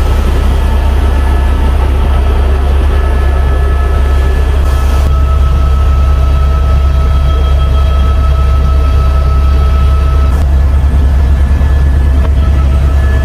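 Helicopter cabin noise in flight: a loud, steady low drone from the rotor and engine, with a few steady high-pitched whining tones over it.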